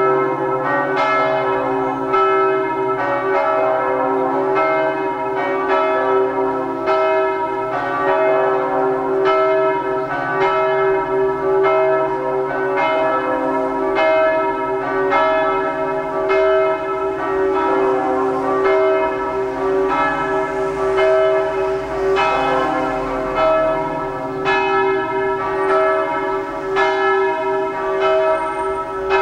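Several church bells ringing together in a continuous peal. Strikes come about once or twice a second and overlap, over a steady hum of the bells' long ringing.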